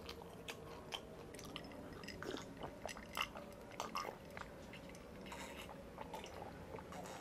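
Faint close-miked mouth sounds of eating: chewing with small wet clicks. Over the last few seconds come swallows of a drink from a glass mug.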